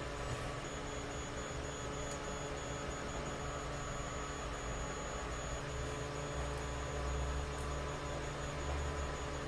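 Steady electrical hum with a low rumble, with a few faint light clicks as thin plastic strips are handled and pressed against a plastic sheet.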